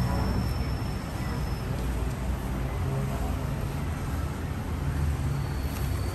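Steady low rumble of vehicle engines and traffic, with a faint thin high whine in the first second or so and again near the end.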